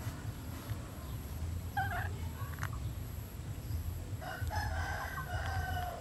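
A rooster crowing: one drawn-out crow beginning about four seconds in that falls slightly at its end, with a shorter call about two seconds in. A steady low hum runs underneath.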